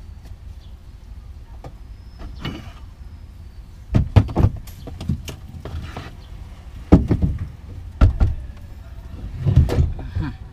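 Heavy powered subwoofer box being tilted and shifted against a car's trunk floor: several clusters of thumps and knocks about four, seven, eight and nine-and-a-half seconds in, over a steady low rumble.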